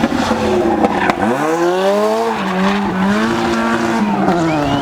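Rally car engine at high revs, the pitch dipping and then climbing sharply about a second in as the car accelerates hard, then holding high, with some tyre squeal.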